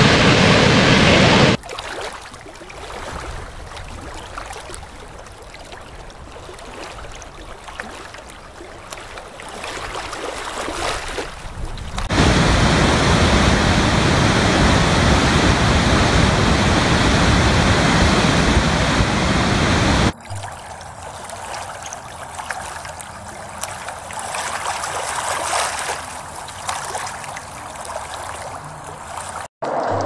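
Rushing water of large waterfalls, a steady roar of spray and falling water in several recorded clips joined by sudden cuts: the level drops sharply about a second and a half in, jumps back up near the middle, and drops again about two-thirds through.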